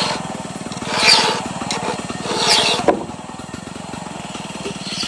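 Two-stroke chainsaw running and cutting wood, its engine surging louder about a second in and again about two and a half seconds in, then running more quietly from about three seconds on.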